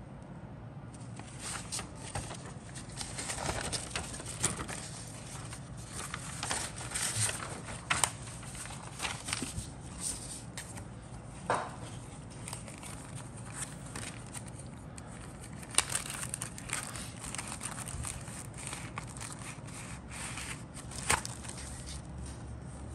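A thin plastic zip-lock bag crinkling and paper rustling as a decal sheet is handled and taken out of the bag, with a few sharp clicks and taps.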